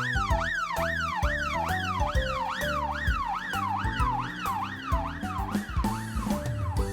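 Siren sweeping quickly up and down, about three rises a second, in a fast yelp pattern, over upbeat children's music; the siren fades out near the end.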